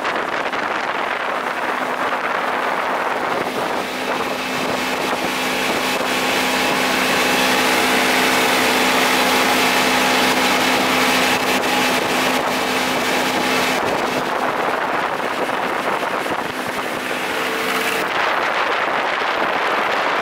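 Evinrude outboard motor running steadily at cruising speed, a constant engine drone with wind buffeting the microphone.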